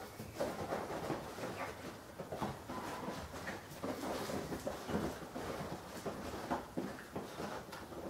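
Rhodesian Ridgeback puppies and their mother playing: irregular scuffling, with paws scrabbling on a tiled floor and a cloth rustling in a stream of small knocks.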